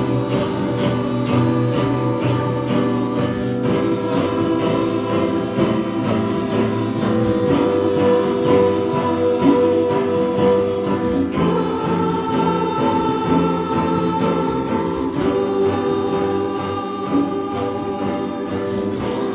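Large mixed choir singing live, holding long sustained chords that move to new chords a few times.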